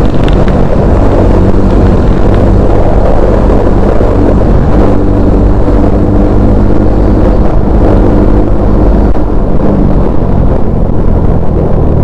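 Bajaj Pulsar N250's single-cylinder engine and exhaust running with a loud, steady note. The note wavers a little about nine seconds in.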